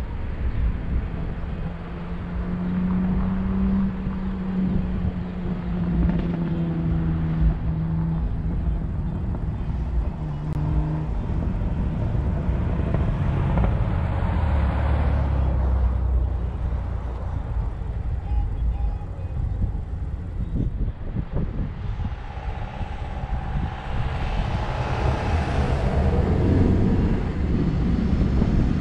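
Mazda CX-9 engine heard from inside the cabin, running steadily while the car stands on the sand, then pulling away across soft sand and growing louder over the last several seconds.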